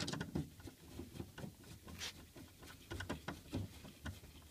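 Phillips screwdriver driving a screw into the plastic back plate of a DLP TV: small, irregular clicks and taps of the driver tip and the plastic panel, with one sharper click about two seconds in.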